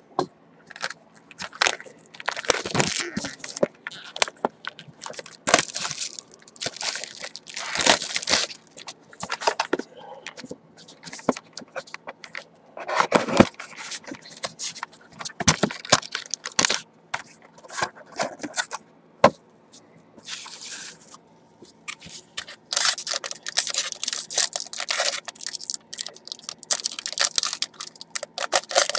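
Plastic wrap crackling and tearing and cardboard scraping as a sealed box of Topps Strata baseball cards is unwrapped and its lid opened: a run of irregular crinkles, scrapes and clicks.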